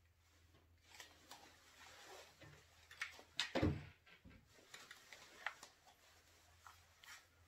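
A shotgun being handled, with faint scattered clicks and a soft knock about three and a half seconds in.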